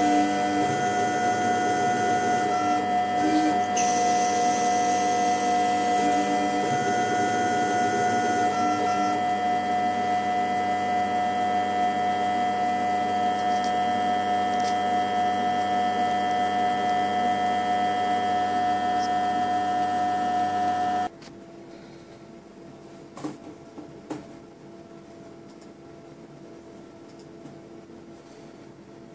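CNC-converted Optimum 180x300 mini lathe running a threading cycle: a steady electric motor whine, with short higher stepper-motor tones coming and going as the carriage feeds. About 21 seconds in the running cuts off suddenly, leaving a quieter hum and a few clicks.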